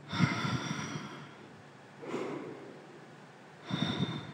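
A woman's audible breaths close to the microphone, three in all, roughly every second and a half to two seconds, the first the loudest, while she holds a strenuous core-strength twist.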